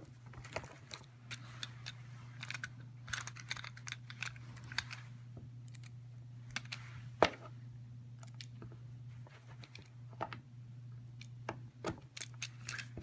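Irregular small clicks, taps and rustles of hands working a Cat5 cable end, RJ45 plug and crimping tool, with one much sharper click about seven seconds in. A steady low hum runs underneath.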